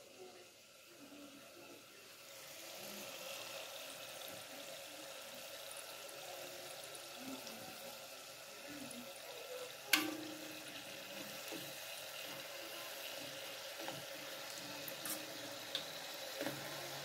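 Faworki dough deep-frying in a pot of hot oil: steady sizzling and bubbling, which picks up about two seconds in. A single sharp knock about ten seconds in, with a few lighter ticks near the end.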